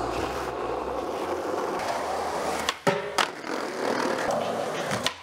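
Skateboard wheels rolling over rough pavement with a steady rumble. About three seconds in there are two sharp clacks of the board hitting the ground, then more rolling and another clack near the end.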